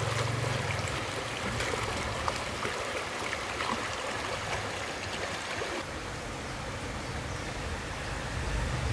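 Stream water running and trickling, with scattered small clicks and splashes over the first few seconds.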